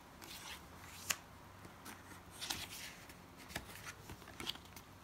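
Stiff cardstock journaling cards being handled and flipped: faint scattered rustling and sliding, with a sharp paper tap about a second in.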